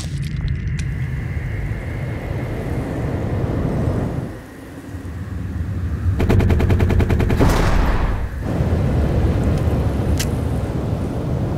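A burst of rapid automatic gunfire, about a dozen shots a second for just over a second, in the middle of a steady low rumble. A single sharp crack follows a few seconds later.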